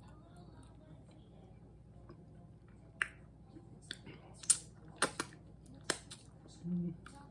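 Close-up eating mouth sounds: wet lip smacks and sucking clicks as fingers are licked clean of sauce, a handful of sharp ones in the middle, then a short hummed "mm" near the end.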